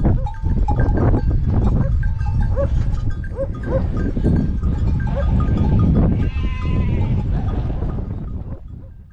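A grazing flock of livestock: small bells on the animals ringing again and again, mixed with short bleats and a longer call about six seconds in, over a steady low rumble. The sound fades out near the end.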